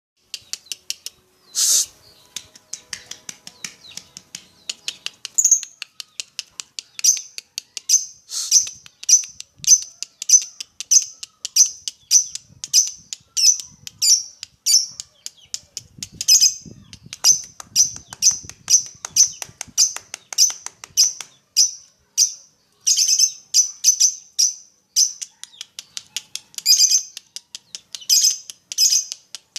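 Lovebird chattering in a long run of short, high, sharp chirps, about two to three a second, with one louder squawk near the start: the rapid ngekek chatter that is used as a training song for pet lovebirds.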